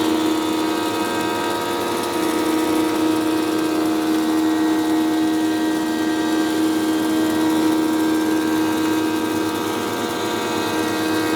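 A stationary woodworking machine running steadily, with a constant hum and a whine above it.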